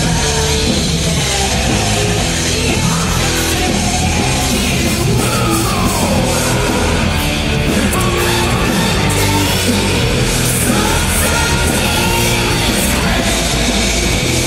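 Heavy rock song playing: a loud, dense, steady band mix, with a falling pitch slide about five seconds in.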